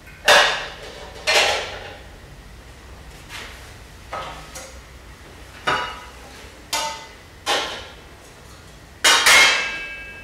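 Metal bowls and pans clanking against one another as they are stacked and handled, about nine sharp, irregular clanks, some leaving a brief metallic ring. The loudest, a double clank near the end, rings on.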